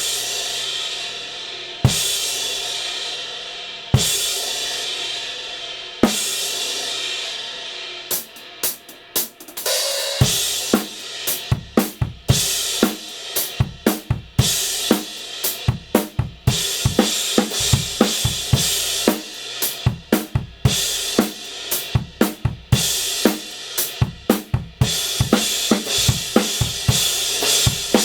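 Kingdo Artist Dark 19-inch crash cymbal struck on its own four times, about two seconds apart, each hit left to ring and fade. About eight seconds in, a drum-kit beat starts, with the crash played in it.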